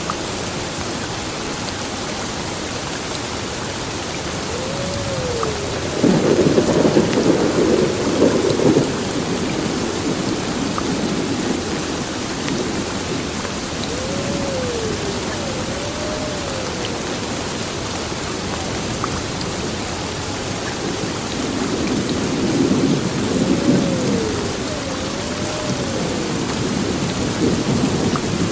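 Heavy rain falling steadily in a thunderstorm, with thunder rumbling loudest about six seconds in and again twice later, the last time near the end.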